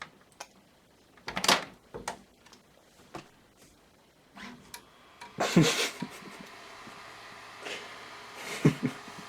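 A few scattered knocks and clicks, then a steady low hum that starts about five and a half seconds in and carries on, with a couple of louder sweeping sounds over it.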